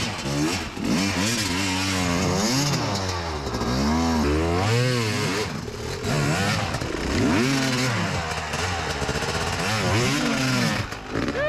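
Dirt bike engine revving up and down over and over as it is ridden, the pitch climbing and dropping about once a second as the throttle is opened and closed.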